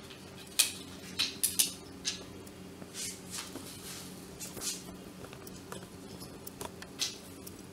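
Plastic housing parts of a dry iron clicking and clattering as they are pulled apart and set down on a table. There is a quick run of sharp clicks in the first two seconds, lighter handling scrapes after, and one more click near the end.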